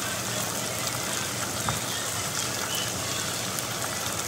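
Flour-coated squid rings deep-frying in a pan of hot oil, the oil sizzling and bubbling steadily. One brief click sounds about one and a half seconds in.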